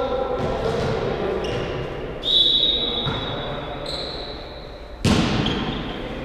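Volleyball rally in a large, echoing sports hall: a sharp hit of the ball about five seconds in, with a ringing echo after it. Players' voices are heard over the first two seconds, and a loud, high, steady squeal starts about two seconds in and lasts roughly three seconds.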